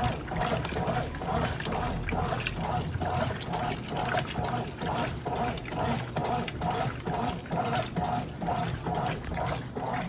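Brastemp Clean washing machine running with water in the drum, a steady rhythmic sloshing about three times a second.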